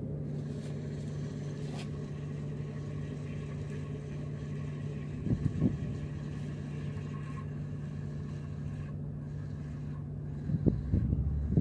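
Boat engine running with a steady low hum, with a few brief low bumps about five seconds in and again near the end.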